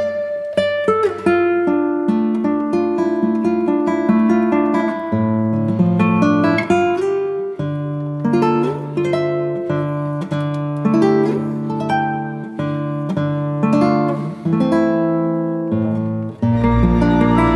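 Background music made of a melody of plucked notes. About a second before the end it shifts to a fuller section with a deep bass.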